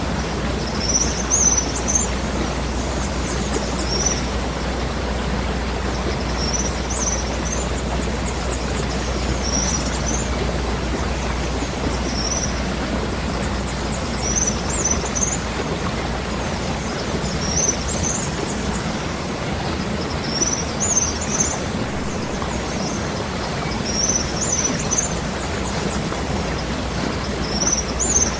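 Waterfall pouring steadily, with a bird giving short high chirps every second or two.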